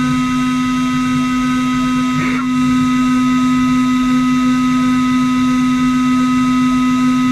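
CNC router running: a steady machine whine with several fixed tones over a noisy hum, and a short rising chirp about two seconds in.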